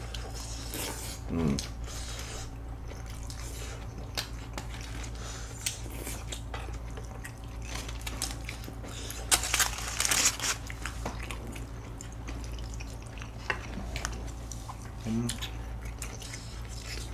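Quiet table eating sounds: chopsticks and utensils clicking against containers and mouth sounds of eating, with a short crinkling rustle of aluminium foil about nine to ten seconds in.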